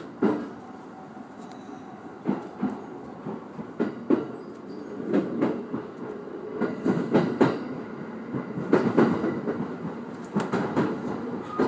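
Wheels of an E501 series electric train clacking over points and rail joints while it runs through the station throat, with a steady running rumble beneath. The knocks are irregular at first and come closer together later.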